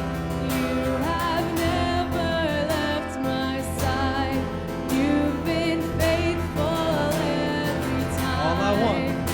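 Live worship band playing a slow song, with a singer's held, wavering notes over sustained instrumental chords.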